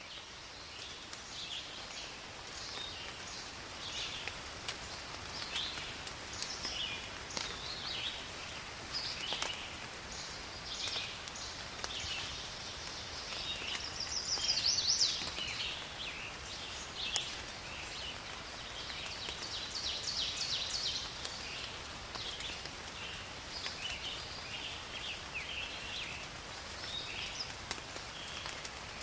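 Forest ambience: several birds chirping and singing in short quick phrases over a soft, steady background hiss, with one louder burst of song about halfway through.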